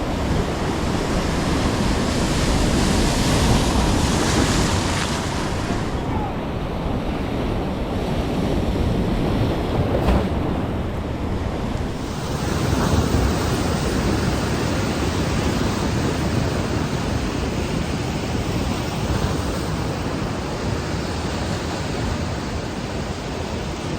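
Big waves breaking and surging against a pier, a continuous rush of water with wind buffeting the microphone. The surf swells louder a few times.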